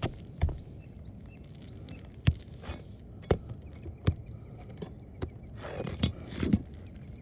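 Steel flat bar working under asphalt roof shingles to break their seal: irregular sharp clicks and taps, with a short scraping rasp near the end.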